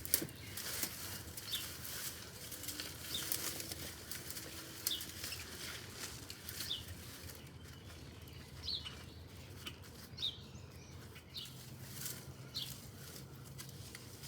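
Rustling and scraping of garden soil as potatoes are dug up, in irregular short bursts, with short high bird chirps every second or two.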